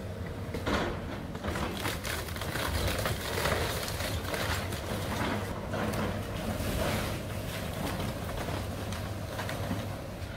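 Excavator engine running while its bucket tears into a wood-frame house. From about a second in, wood cracks and splinters and debris crashes down again and again.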